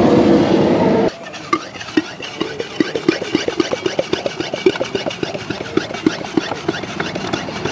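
A steady rushing noise for about a second, then, after a sudden drop, quick squelching clicks several times a second: a hand pump pushing gear oil into a Yamaha outboard's lower unit through the drain hole, topping off a gear case that was a little low.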